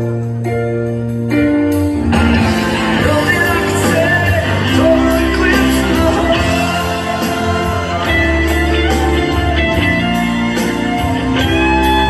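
Loud pop music with singing, played over the dance-floor sound system in a large hall. A few held notes open it, and the full arrangement comes in about two seconds in.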